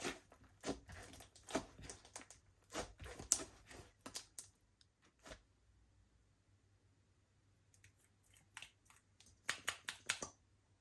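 Slime being squeezed and stretched by hand, giving a run of sharp sticky clicks and crackles for about four seconds, then a quiet stretch, then a few more clicks near the end.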